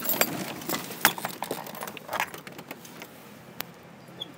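Handling noise from the recording camera being moved: rustling and sharp clicks, busy for the first couple of seconds, then quieter with a single click.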